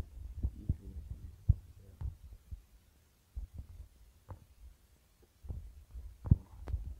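Irregular low thumps and light taps of fingers tapping and handling a phone near its microphone, with two sharper knocks, one about a second and a half in and one near the end.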